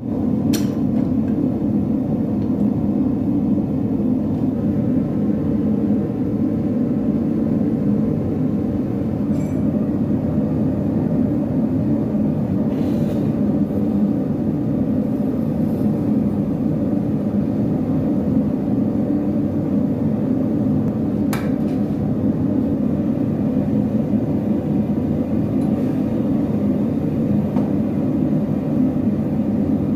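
Electric grinder running steadily while it grinds the edge of a forged steel drawknife blade, with a couple of brief clicks.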